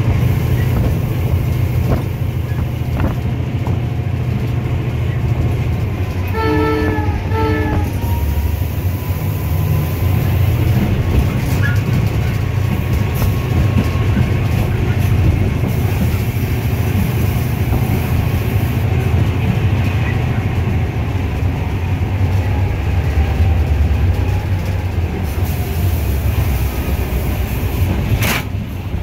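EMD GL18B locomotive's eight-cylinder EMD 8-645 two-stroke diesel running steadily under the cab, heard from inside the cab. About six seconds in, the horn sounds two short blasts.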